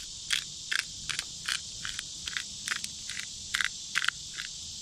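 Insects droning steadily in the background, with a short chirp repeating about two or three times a second.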